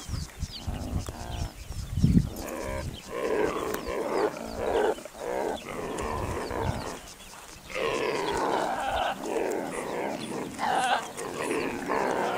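Warthog piglets squealing and grunting over and over as they jostle to suckle from the sow, with a few low thuds about two seconds in.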